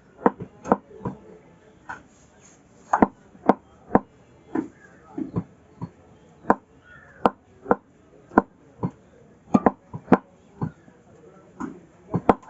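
A butcher chopping beef: sharp, irregular chops of the blade through the meat into the chopping block, about one to two a second, some in quick pairs.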